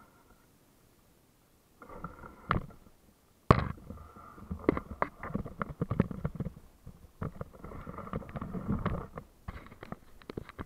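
Handling noise on the camera itself as it is picked up and carried through dry brush: knocks, scrapes and rustling against the mic, with one sharp knock about three and a half seconds in the loudest. Quiet for the first two seconds.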